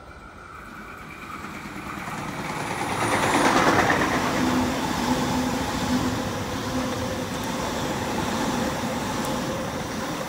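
Double-deck electric passenger train running past along the platform. The rumble grows as it comes near and is loudest about four seconds in. It then stays steady as the carriages go by, with a steady motor hum under the wheel noise.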